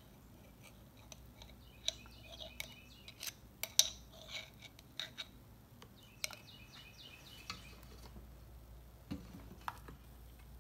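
Metal spoon scraping and clinking inside a glass jar of minced garlic as it is scooped out, a scatter of light taps and scrapes with the sharpest clinks about two seconds in and near four seconds.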